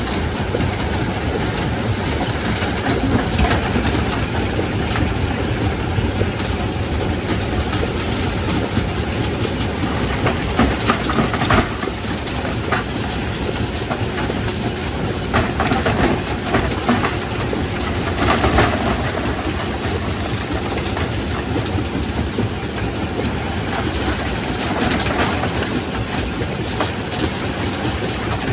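Quarry primary rock crusher running under load: a steady heavy mechanical din with rock cracking and knocking as stone is crushed. A few louder crunches stand out about 11, 16 and 18 seconds in.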